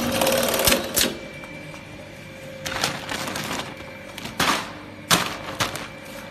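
Bag-closing sewing machine stitching a woven plastic sack, running fast for about a second and then stopping. Afterwards a steady motor hum carries on, with several sharp mechanical clacks.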